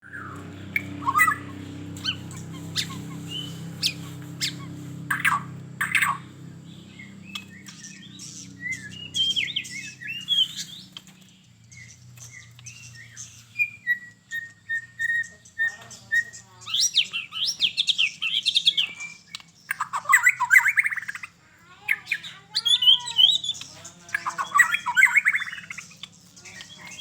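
White-rumped shama (murai batu) singing in full voice: a varied run of loud whistled phrases, sharp clicks and quick trills, with a string of repeated even notes about midway. A low steady hum sits under it, strongest in the first several seconds.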